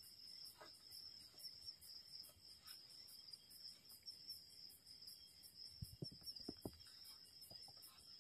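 Faint crickets chirping at night: a steady high trill with even chirps about three times a second. A few soft low thumps come about six seconds in.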